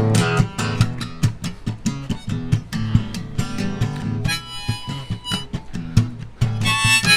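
Acoustic guitar strummed in a steady rhythm. A harmonica joins about four seconds in and plays again near the end, in an instrumental break of a folk song.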